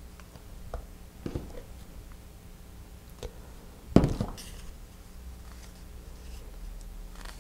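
Handling noises of a paper rocket body tube and its glued cardboard centering ring: small clicks and rustles as it is turned and pressed in the hands, with one louder knock about four seconds in.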